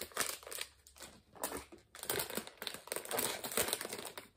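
Crinkling and tearing of a printed plastic blind bag being handled and torn open by hand, a dense run of crackles that gets busier about halfway through.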